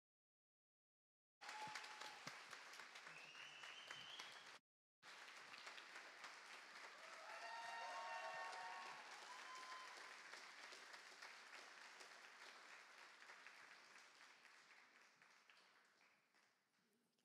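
Audience applauding with a few whoops and cheers, starting suddenly after a moment of silence. It swells, then dies away gradually.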